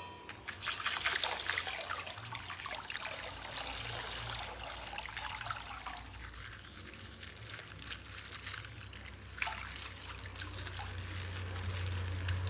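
Quiet crinkling and rustling of plastic toy packaging being handled and opened, busiest in the first half, with one sharper crackle near the end.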